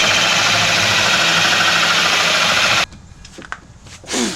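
Power drill running in reverse with a Milwaukee hole saw bit, grinding into wooden shiplap with a steady loud whir. It stops suddenly about three seconds in, followed by a few light clicks and a short sound near the end.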